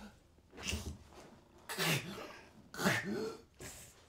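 A woman sobbing in three short, gasping, falling cries about a second apart, with quiet breaths between them.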